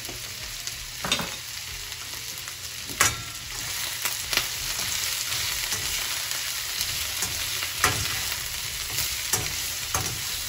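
Green pepper, onion, ginger and green chillies sizzling in hot oil in a wok over a high flame. A metal slotted spatula stirs them and knocks sharply against the pan about six times.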